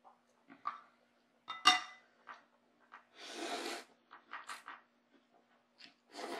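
An eating utensil clinks sharply against a soup bowl about a second and a half in, leaving a short ringing tone, among smaller clicks and soft eating noises.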